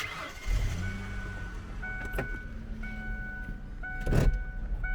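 Pickup truck engine running with a low rumble, starting up about half a second in. A clear repeating tone sounds about once a second from about two seconds in, and two sharp knocks come about two seconds apart.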